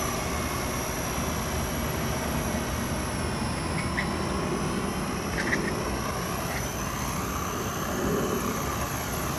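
Battery-powered radio-controlled model helicopter flying overhead. It gives a steady high-pitched motor whine over the rushing of its rotors.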